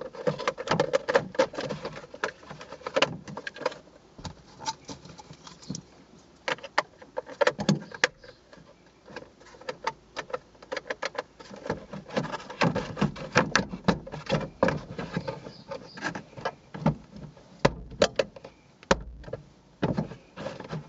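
Plastic overhead console of a 2011 Nissan Leaf being handled and pushed back into the headliner: irregular clicks, knocks and rattles of plastic trim.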